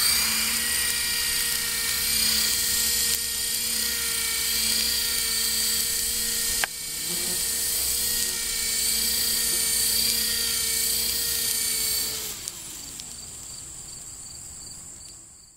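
Radio-controlled model helicopter running with a steady high whine from its motor and rotor, with one sharp click about halfway through. Near the end the whine cuts and slides down in pitch as the rotor spins down, leaving a fainter hum.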